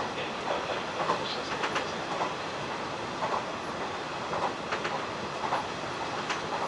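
Hanshin 1000 series electric train running along the line, with a steady running noise and the wheels clicking irregularly over rail joints, about one or two clicks a second.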